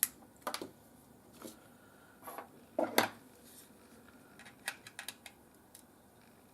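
A series of short, separate clicks and light knocks, about ten of them, the loudest about three seconds in, from hands handling the small multimeter on the bench.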